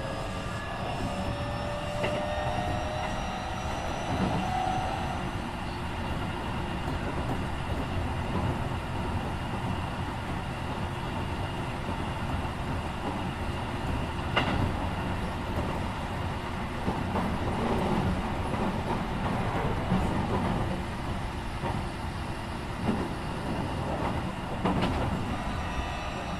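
Keikyu 1500 series electric train with a Mitsubishi IGBT-VVVF inverter, heard from inside the car. The motor whine rises in pitch during the first few seconds, then fades into steady rolling noise with occasional clicks from the rails.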